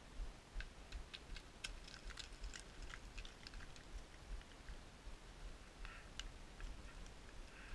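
Loose scree stones clicking and clinking against each other: a quick run of small, sharp clicks in the first three seconds and a few more about six seconds in, over a low rumble.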